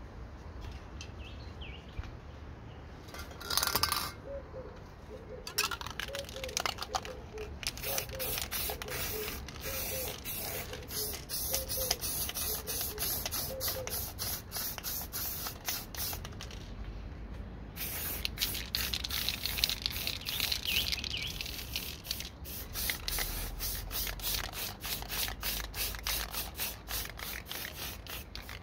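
Aerosol spray paint cans hissing: one longer spray about four seconds in, then a long run of short, quick sprays, with a steadier spell of spraying about two-thirds of the way through.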